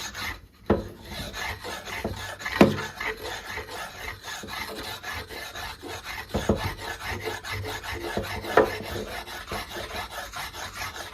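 Worn sharpening stone scraped back and forth over a pitted, rusty chrome-plated steel bar in steady, rhythmic rasping strokes, grinding down ridges and blistered chrome. A few louder knocks of stone on metal sound along the way.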